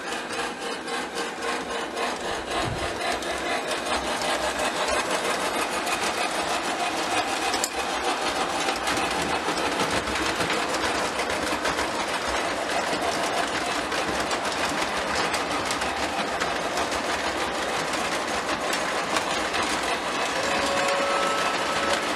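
Lionel O27 model trains running on three-rail tinplate track: a steady whirring of the electric motors and rattling of wheels over the rails. Near the end a toy locomotive whistle starts blowing, a steady two-note tone.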